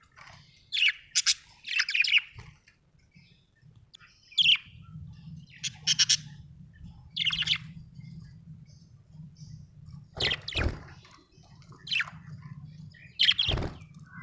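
Budgerigars chirping in short, separate high chirps, about a dozen spread through. Two of the chirps near the end come with a low thump, over a faint low hum.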